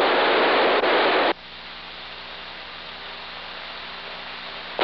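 Radio static hiss from an open transmission, cutting off abruptly about a second in. A quieter steady hum follows, then a short burst of static near the end as the next transmission keys up.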